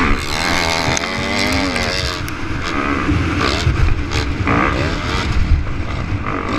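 Dirt bike engine ridden hard, heard from the rider's onboard camera, revving up and down with throttle and gear changes. The rising and falling pitch is plainest in the first two seconds and again about four and a half seconds in, over a rough, rumbling exhaust.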